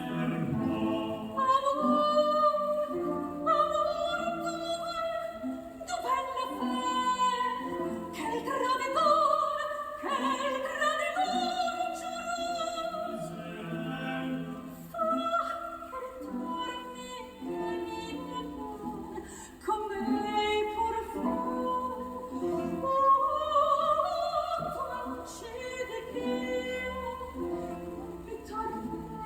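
Recorded operatic music, a singing voice holding wavering notes with vibrato over an accompaniment, played back through Kenwood CM-7ES compact speakers driven by a Sony STR-DE197 receiver.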